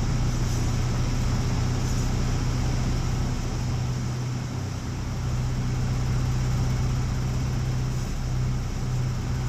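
A 1946 Aeronca 11AC Chief's small air-cooled engine and propeller droning steadily in the cockpit on final approach to land, carburettor heat on, with a steady low hum under rushing air noise; the level dips slightly about halfway through.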